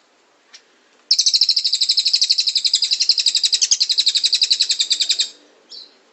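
Cililin bird song: a loud, very fast trill of evenly repeated high notes, starting about a second in and lasting about four seconds, with a short single chirp before it and another just after.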